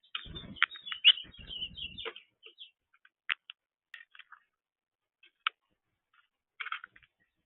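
Small birds chirping: a quick flurry of calls over a low rumble in the first two seconds, then scattered single chirps every second or so.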